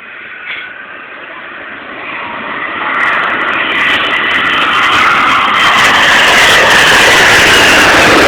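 Airplane passing close by, its engine noise building from about two seconds in to a loud rush, with a whine that falls in pitch as it goes past.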